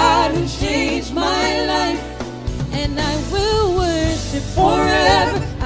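Gospel song: women singing sustained, wavering phrases over an instrumental accompaniment with a steady bass line.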